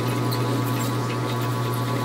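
Metal lathe running, a steady low hum, with faint light ticks above it.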